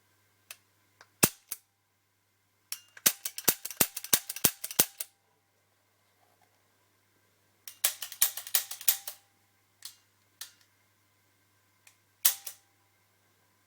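Walther CP88 CO2 pellet pistol firing: sharp cracks, with a single shot about a second in, then two quick strings of shots, and another shot near the end, with lighter mechanical clicks in between.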